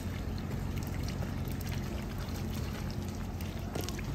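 Shallow lake water splashing as a dog wades at the shore, with scattered small clicks, over a steady low rumble.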